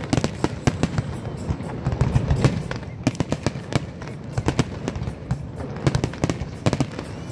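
Aerial firework shells bursting in a continuous barrage: several sharp bangs a second over a steady low rumble.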